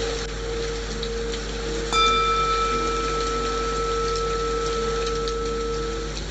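A singing bowl struck once about two seconds in, ringing with a clear high tone and fainter overtones for about four seconds, over a steady patter of rain white noise and a low held tone.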